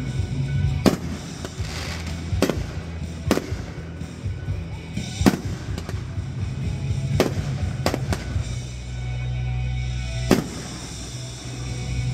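Aerial fireworks shells bursting overhead: about eight sharp bangs, irregularly spaced a second or two apart, with crackling from the bursting stars in the first few seconds.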